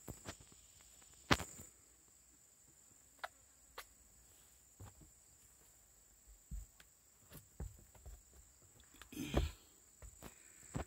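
Faint footsteps on wooden planks and forest litter: scattered soft knocks and crunches, with a longer rustle about nine seconds in, over a steady high insect drone.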